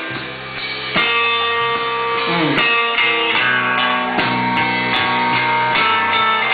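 Live band music led by a strummed electric guitar playing steady, evenly repeated chords, with a short sliding note about two and a half seconds in.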